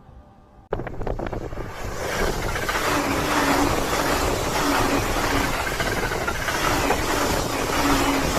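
E259 series Narita Express electric train passing close by at speed: its running noise starts suddenly about a second in with a few clicks, then holds as a loud, steady rush of wheel and air noise, with a low hum coming and going.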